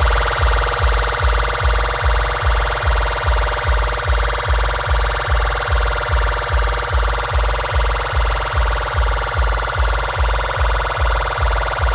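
DJ sound system playing a sound-check track: a heavy bass kick pounding about two and a half times a second under a steady, held high tone.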